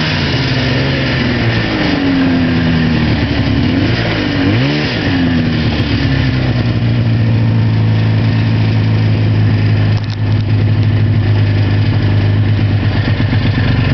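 Arctic Cat Pantera snowmobile engine revving up and down, its pitch rising and falling several times, then running at a steady pitch from about six seconds in.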